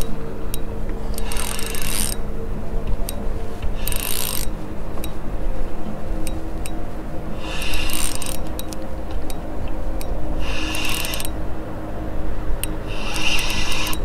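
Spinning reel working during the fight with a hooked walleye: short rasping bursts of reel and drag noise about every three seconds, with ticking in between, over a steady low hum.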